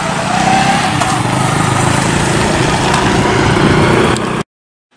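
Motorcycle traffic passing over a railway level crossing, engines running with one rising in pitch near the start; the sound cuts off suddenly about four and a half seconds in.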